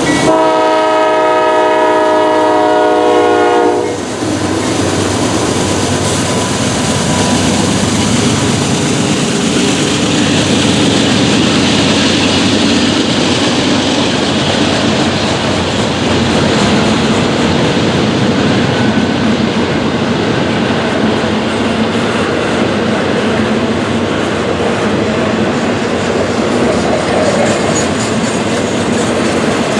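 Norfolk Southern freight train at a grade crossing: a locomotive air horn sounds a several-note chord that cuts off about four seconds in. The train then rolls past, loud and steady, with the rumble and clickety-clack of its freight cars' wheels over the rails.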